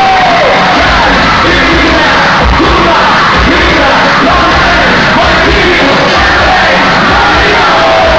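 Dance music blasting from a party sound system, recorded close and overloaded, with a pulsing bass beat and voices yelling over it.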